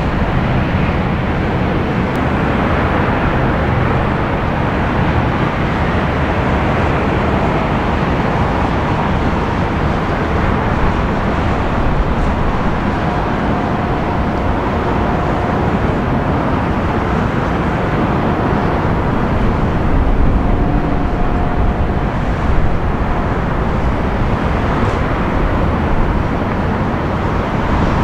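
Steady roar of airliner engines on the runway: a Dash 8-400 turboprop, then an Airbus A320 jet landing and rolling out, with a deep rumble underneath. A faint steady engine whine runs through the middle stretch.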